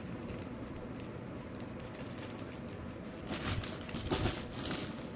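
Packaging being handled and opened by hand: light scattered clicks and rustling, turning into denser crinkling and crackling from about three seconds in.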